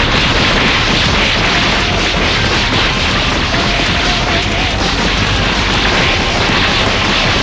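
Anime-style sound effect of a sustained explosion-like blast: a loud, unbroken rumble with a heavy hiss over it.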